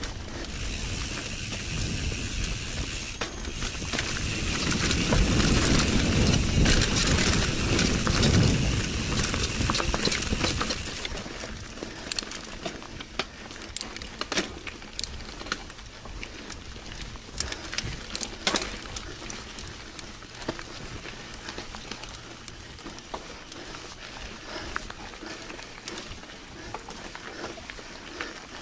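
Mountain bike ridden along a dirt forest trail: loud rushing wind and tyre noise for about the first ten seconds, then quieter riding with many small clicks and rattles from the bike over the rough ground.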